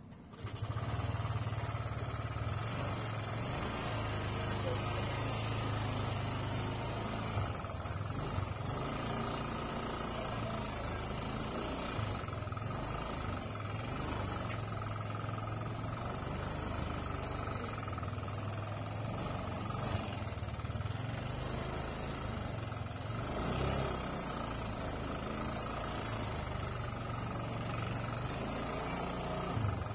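A small engine running steadily, a low even drone that comes in suddenly about half a second in and holds without a break.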